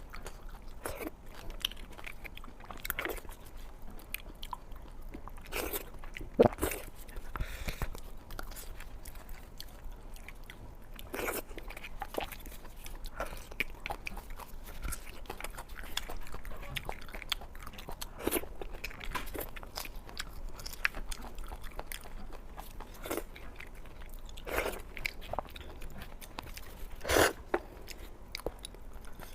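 Close-miked eating: steady chewing with wet mouth sounds and separate crunchy bites, several of them louder, the loudest near the end.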